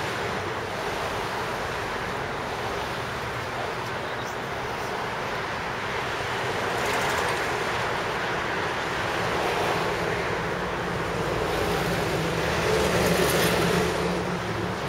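Steady outdoor noise of road traffic mixed with wind on the microphone, swelling a little a few seconds in and again near the end.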